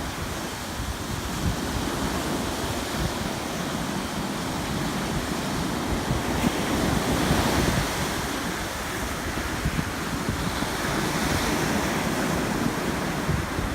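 Ocean surf washing onto the beach, a steady rushing that swells about halfway through, with wind buffeting the microphone.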